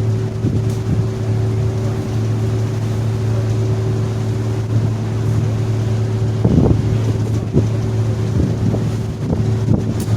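Staten Island Ferry's engines running with a steady, deep drone and a hum of several fixed tones. Wind buffets the microphone now and then, hardest about six and a half seconds in.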